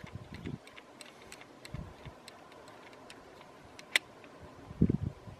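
Pistol slide being racked by hand, with one sharp metallic click about four seconds in as the slide snaps home. Lighter handling clicks come before it, and a few dull low thumps follow near the end.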